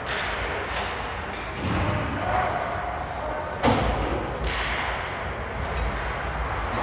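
Ice hockey game on a rink: a steady wash of skates and play, with a single sharp knock about halfway through that rings briefly, the loudest sound.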